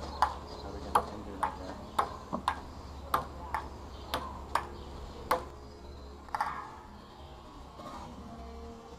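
Table tennis rally: the ball clicking off the paddles and bouncing on the table, about ten sharp clicks in quick alternating succession, stopping a little past halfway when the rally ends.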